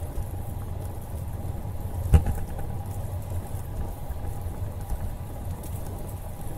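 Wind buffeting and tyre rumble on a camera carried by a moving bicycle on a paved trail, a steady low rumble with a faint hum, and a single sharp thump about two seconds in.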